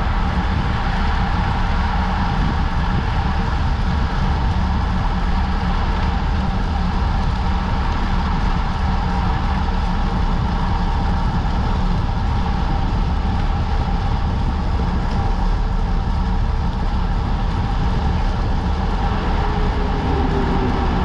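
Steady wind rush over a bicycle-mounted camera's microphone at about 48 km/h, mixed with road-bike tyres rolling on asphalt.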